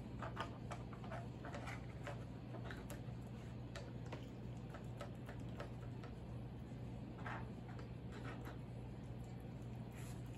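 A dog puzzle feeder being worked by a small terrier's nose: irregular light clicks and clacks as its sliding pieces and treats are knocked about, in bunches, with a lull in the middle.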